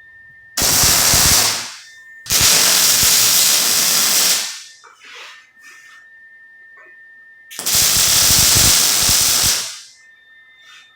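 MIG welder arc crackling and hissing in three short welds: about one second, about two seconds, then after a pause another two seconds.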